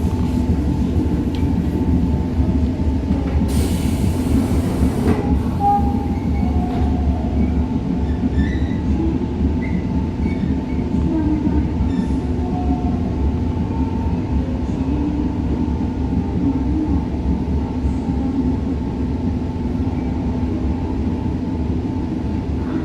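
Train running steadily, a continuous low rumble of wheels on track, with a brief hiss about four seconds in.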